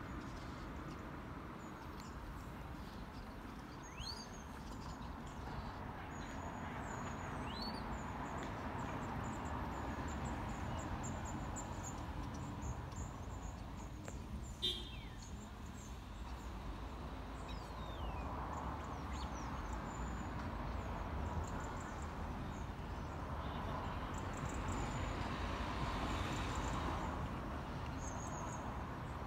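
Birds chirping now and then over a steady low background rumble, with a single sharp click about fifteen seconds in.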